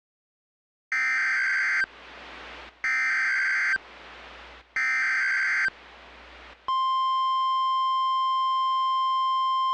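Emergency Alert System SAME header: three bursts of buzzy digital data tones, each about a second long, with faint hiss in the short gaps between them. About seven seconds in, a steady single-pitch attention tone begins, marking the start of a tornado warning alert.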